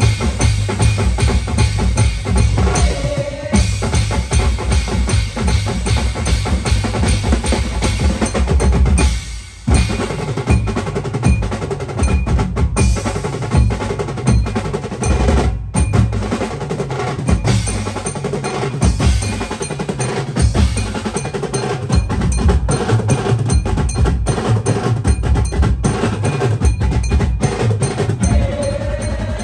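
A live beats band playing a fast, loud drum groove on roto toms, bass drums, drum kits and cymbals, with an octapad and keyboard. The beat drops out for a moment about nine seconds in, then comes straight back.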